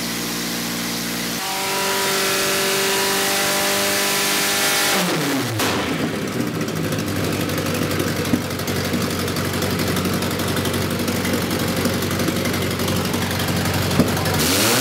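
Volvo B230 2.3-litre four-cylinder engine running on an engine dyno: held at a steady high speed under load, then the revs fall away about five seconds in and it runs on at a lower, rougher speed, with a couple of sharp clicks, before revving up again at the end. This run is on a new freer-flowing exhaust that cost 10 hp, blamed on unburnt fuel in the cylinders.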